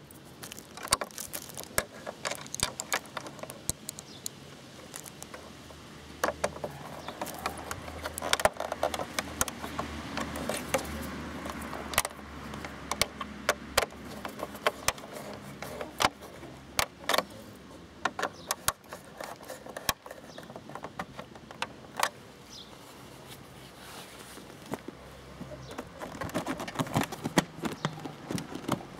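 Scattered clicks and rattles of hand work on the plastic tail section of a Honda CBF125 motorcycle: a screwdriver turning a screw home, then the rear seat being pressed back into place near the end.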